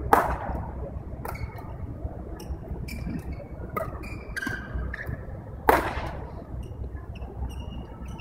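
Badminton rackets striking shuttlecocks in an echoing sports hall: two loud sharp cracks, one right at the start and one about five and a half seconds in, with lighter hits between and brief squeaks of shoes on the court.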